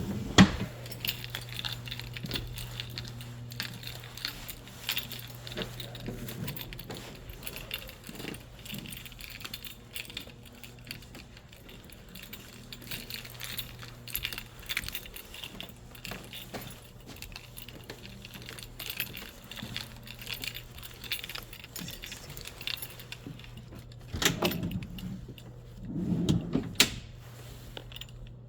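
Light metallic jingling and clicking over a steady low hum, with two louder thumps near the end.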